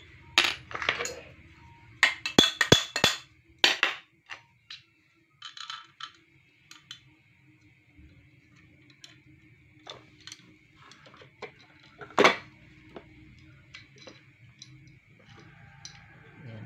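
Metal water-pump parts clinking and knocking against each other as they are handled and fitted by hand. A quick run of sharp clinks comes in the first few seconds, with lighter taps after it and one louder knock about twelve seconds in.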